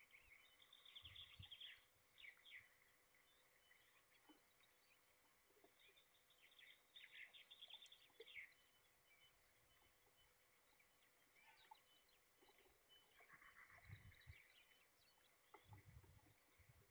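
Faint chirping song of small songbirds in three short bouts, with a few soft low thumps near the end.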